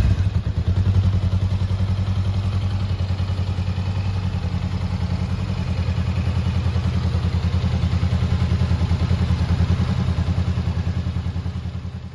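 Honda NX400's 399 cc parallel-twin engine idling steadily with an even, fast exhaust pulse, fading out near the end.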